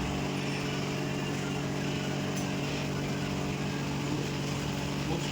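Steady mechanical hum of a running motor, holding several fixed low tones without change.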